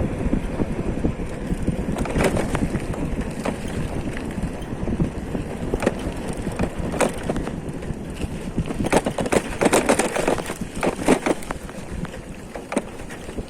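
Wind buffeting the microphone over a steady rumble of travel along a road, with scattered knocks and rattles, a cluster of them about nine to eleven seconds in.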